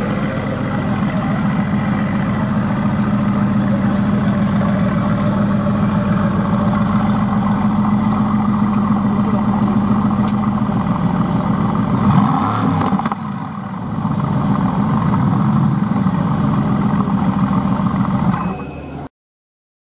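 Mercedes-AMG GT S 4.0-litre twin-turbo V8 idling through its exhaust, with one short rev about twelve seconds in before it settles back to idle.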